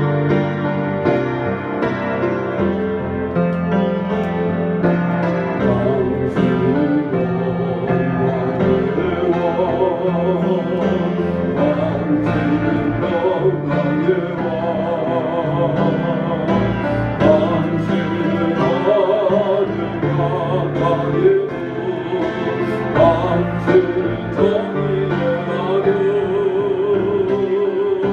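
Piano playing slow music, joined about eight seconds in by a solo singing voice with a marked vibrato.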